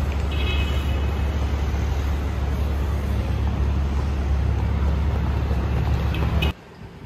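City street traffic: cars and scooters passing through an intersection, a steady, dense rumble that cuts off suddenly near the end.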